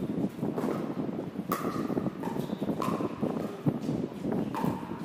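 Pickleball paddles striking a hollow plastic pickleball in a rally: sharp pocks, each with a brief ringing, about one a second, over low court background noise.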